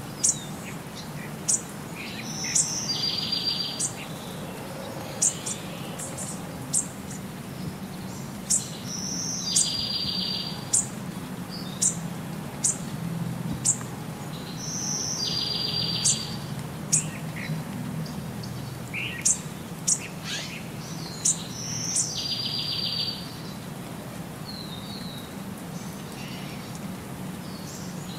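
Birdsong with sharp high chirps about once a second, and a recurring call, a short high note followed by a trill, about every six or seven seconds, over a steady low hum.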